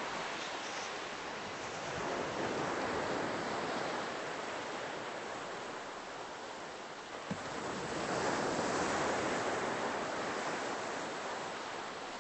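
Ocean surf breaking on a beach: a continuous wash of waves, swelling louder about two seconds in and again from about eight seconds.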